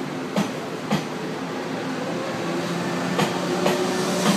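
Taiwan Railway E1000 push-pull Tze-Chiang express passenger cars rolling past as the train pulls out of the station, a steady rolling rumble growing slightly louder. Two pairs of wheel clicks, one about half a second in and another about three seconds in, as the bogies' axles cross a rail joint.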